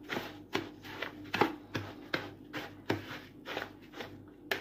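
Wooden spoon stirring a dry mix of bulgur, semolina and flour in a bowl: quick, regular scraping strokes, a little over two a second, with one sharp click near the end.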